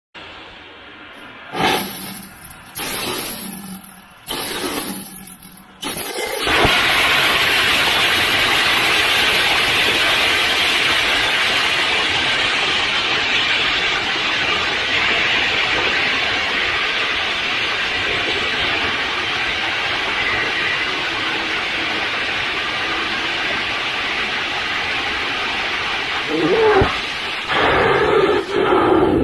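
3D-printed, regeneratively cooled LOx/kerosene liquid rocket engine in a static hot-fire test. After several short bursts it runs with a steady loud rushing noise from about six seconds in until about twenty seconds later, then cuts off with a few brief uneven bursts.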